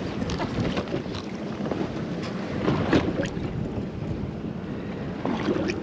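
Wind buffeting the microphone over water lapping against a boat's hull, with a couple of sharp slaps about two and three seconds in.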